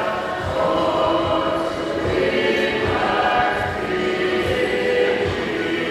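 Choir singing church music, with repeated low beats underneath.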